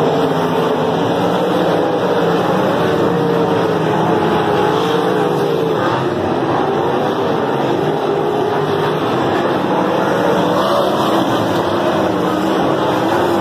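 A pack of winged sprint cars racing on a dirt oval, their V8 engines running loud and continuous, several pitches rising and falling as the cars go through the turns and down the straights.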